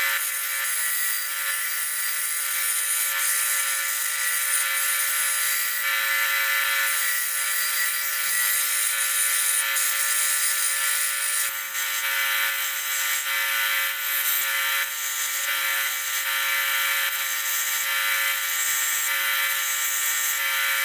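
Belt sander running with a steady whine while a metal hook is pressed against the abrasive belt, adding a grinding hiss that shifts in strength as the part is worked.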